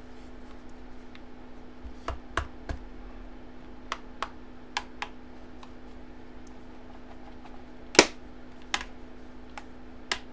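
Scattered sharp clicks and taps from hands handling a display box and its card holder, the loudest about eight seconds in, over a steady low hum.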